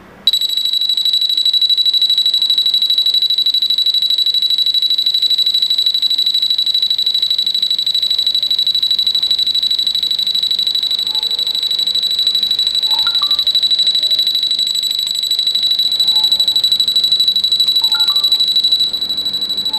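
Wi-Fi water leak sensor's built-in alarm sounding: a loud, steady, shrill high-pitched tone that starts abruptly about a quarter second in. It signals that water has reached the probe's contacts, a flood alert. Near the end it drops slightly in level.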